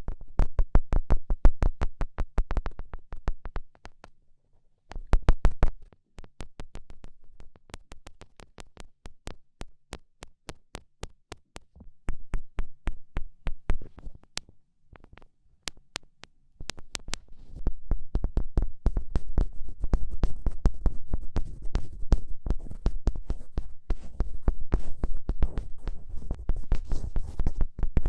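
Rapid fingertip taps, several a second, with short pauses about four seconds and about fifteen seconds in. The taps turn into heavier, deeper thumps over the last ten seconds.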